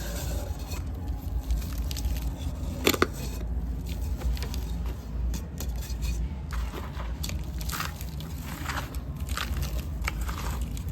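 Dry, dusty sand-cement pieces crumbling and crunching, a run of irregular small crackles with one sharp snap about three seconds in, over a steady low hum.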